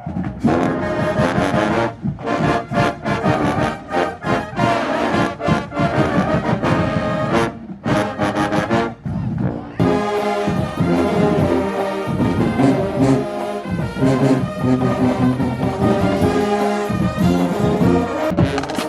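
Marching band brass playing loudly: short, separated chords with brief gaps in the first half, then a fuller, sustained passage from about ten seconds in.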